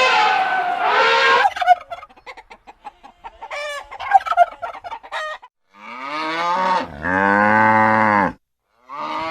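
A steady pitched call cuts off about a second and a half in. Poultry then call in a rapid stuttering rattle for about four seconds, followed by a cow mooing in one long, low call.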